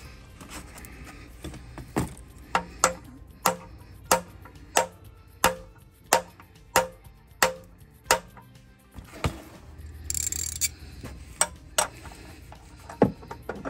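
Hammer tapping a bolt-extractor twist socket onto a rounded oil drain plug, driving it on so its grooves bite into the plug. About a dozen sharp metal taps, roughly one and a half a second, each ringing briefly, then a short rustle and a few clicks as the ratchet goes on.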